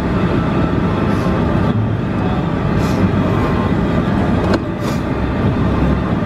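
Straight-piped 5.9 Cummins inline-six turbo diesel in a Dodge Ram 2500, running loud and steady.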